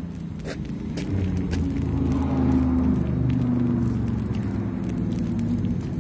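Low, steady hum of a motor vehicle engine, swelling through the middle and easing off again, with a couple of faint clicks in the first two seconds.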